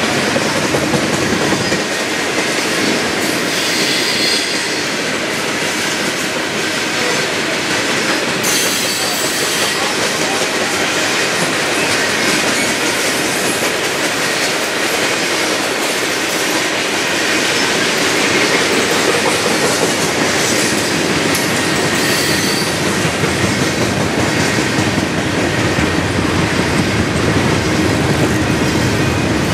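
Loaded coal train's freight cars rolling steadily past, wheels running over the rail joints, with brief high-pitched wheel squeals now and then.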